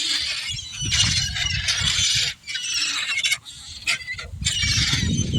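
A flock of gulls squealing and calling all at once, many overlapping high-pitched cries, with a low rumble underneath that grows toward the end.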